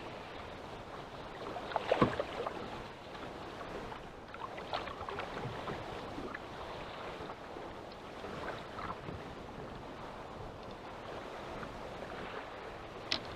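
Choppy sea slapping against a small boat's hull, with wind on the microphone. A sharp clatter of knocks about two seconds in, and a single knock near the end.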